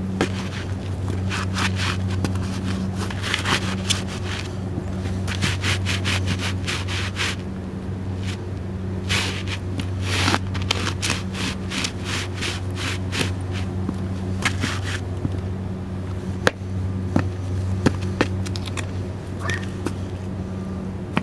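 Dress boot soles crunching and grinding crackers underfoot: a dense run of crackles and scrapes for about the first fifteen seconds, then scattered single cracks. A steady low hum runs underneath.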